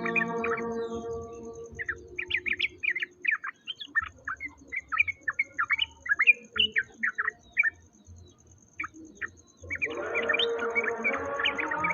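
A songbird singing a rapid run of short chirps for several seconds, ending in a few scattered notes. It sits between stretches of a steady pitched drone with many overtones, one at the start and one coming back near the end, over a faint fast-pulsing high tone.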